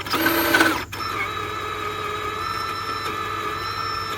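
Small electric motor of an RC rock-crawler truck whining steadily, with a louder, rougher burst in the first second.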